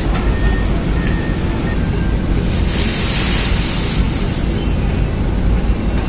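Steady low rumble of a car ferry's engines heard from the open deck, with wind buffeting the microphone and a louder rush of wind about three seconds in.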